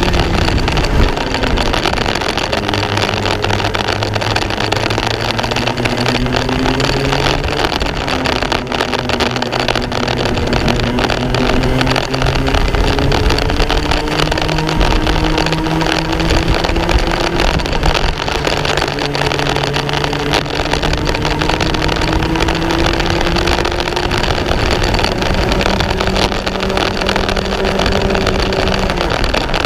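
Racing kart engine heard onboard at full race pace. Its pitch climbs slowly for several seconds at a time and then drops back sharply a few times as the kart brakes for corners, over a steady rushing noise.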